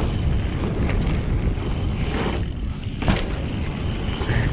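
Mountain bike rolling along a dirt trail: a steady rumble of tyre and wind noise on the camera microphone, with brief knocks from the bike about one and three seconds in.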